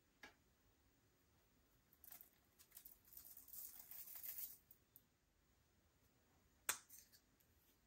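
Slime being worked by hand: faint, fine sticky crackling through the middle, with a short click near the start and a sharper click later on.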